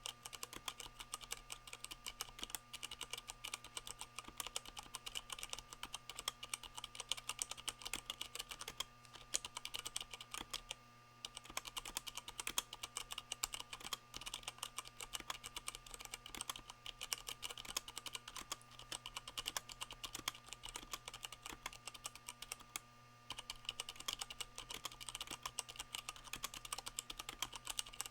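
Fast, continuous typing on a Leopold FC660M mechanical keyboard with Cherry MX Brown switches fitted with rubber O-rings, the board resting on a towel. Keystrokes come in a dense stream, broken by brief pauses about nine, eleven and twenty-three seconds in.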